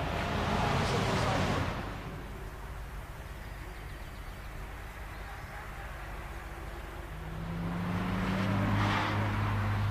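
Nissan R35 GT-R's twin-turbo V6 through an HKS exhaust, loud as the car accelerates away for the first second and a half, then fading. After a quieter stretch, a steady low engine drone starts about seven seconds in and swells near the end.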